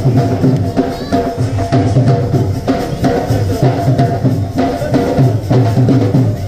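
Music with a steady, regular drum beat from dhol drums and a pitched melody line over it.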